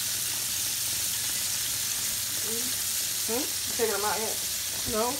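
Whole breaded fish deep-frying in a stainless steel pan of hot oil, a steady sizzle and bubbling that does not let up.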